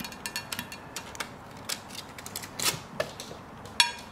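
Small clicks and taps of a syringe, vaccine vial and plastic packaging being nudged and handled on a glass tabletop, with one sharper, ringing clink near the end.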